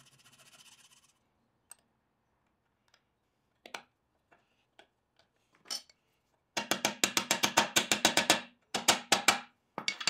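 Rapid sharp metallic clicks and taps as the dovetailed brass and stainless steel box pieces are handled and pushed together on a bench. A few single clicks come first, then a dense run of knocks near the end with a low ring under them, and one louder knock at the close.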